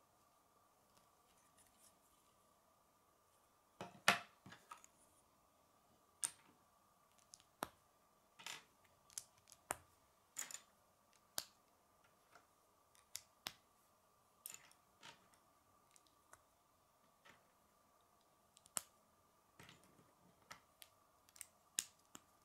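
Hard plastic K'nex rods and connectors snapping and clicking together by hand: irregular sharp clicks, the loudest a quick cluster about four seconds in. A faint steady high hum lies underneath.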